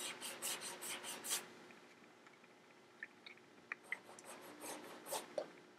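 Paintbrush bristles scrubbing on a stretched canvas: a quick run of short, faint strokes in the first second and a half, then a few fainter scattered strokes and ticks.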